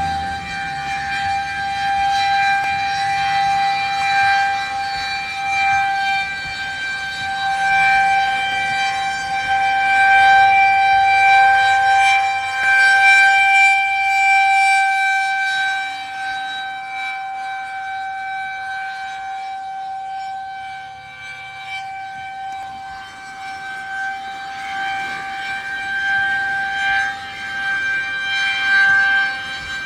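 Federal Signal 2001-130 outdoor warning siren sounding a steady tone, its loudness swelling and fading slowly as it rotates. It is running on its DC battery backup because mains power was out.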